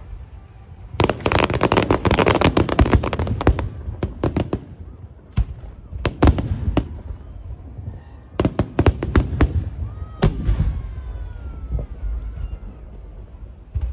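Aerial fireworks shells bursting: a dense run of rapid crackling pops for a couple of seconds, then single bangs and short clusters of bangs through the rest.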